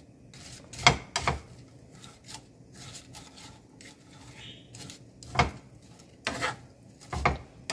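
Wooden spatula stirring and scraping fried bitter gourd and onion around a frying pan, with a few sharp knocks of the spatula against the pan.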